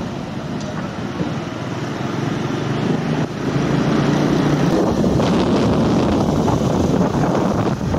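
Motor scooter engines and road noise heard from a moving motorbike, with wind on the microphone; the sound gets louder about three seconds in and stays loud.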